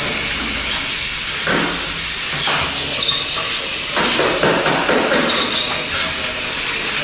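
A steady, loud hiss, like a high-pressure jet, with faint voices in the background at times.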